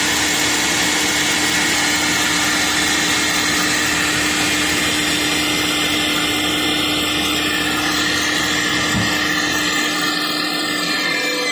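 Electric meat grinder's motor running steadily with a constant hum, which stops near the end.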